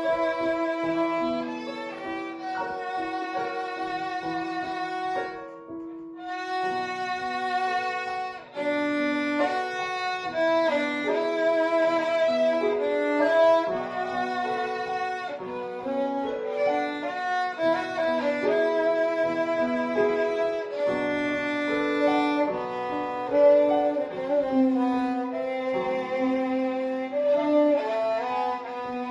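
Violin playing a slow melody of long, sustained notes with vibrato, with a short break about six seconds in and another at about eight and a half seconds.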